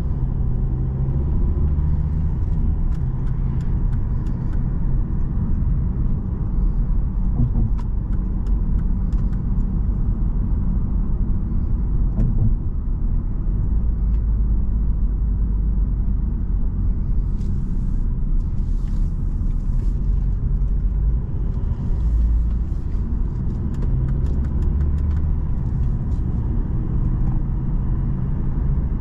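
Interior driving noise of a 2010 Volvo S60 under way: a steady low engine and tyre rumble, with a few faint clicks and a light hiss that swells a couple of times in the second half.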